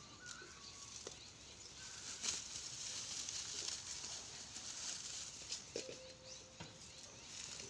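Goats tugging and chewing at a pile of dry fodder stalks: a crackly rustling with scattered snaps and clicks. A short, steady-pitched animal call sounds faintly about six seconds in.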